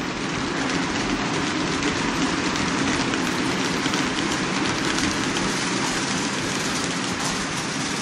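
HO-scale model train of 40-foot Athearn ice-bunker reefer cars on Bowser trucks rolling along the track: a steady rolling rattle with fast, irregular clicking of the wheels on the rails.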